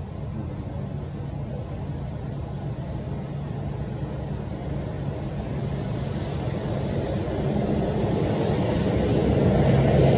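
A low engine drone, steady in pitch and growing louder toward the end.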